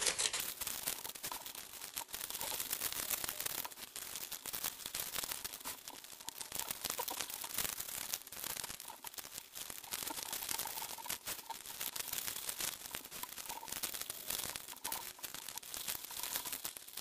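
Origami paper rustling and crinkling as hands slide the tip of one paper module into the pocket of another, with many small crackles and clicks throughout.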